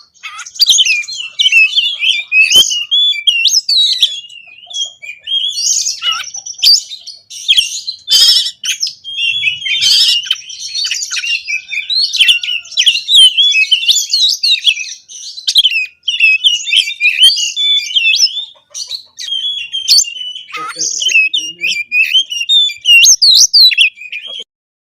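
Oriental magpie-robin (kacer) singing nonstop: a fast, varied run of whistles, chirps and harsher phrases packed with mimicked fill-ins, ending abruptly near the end.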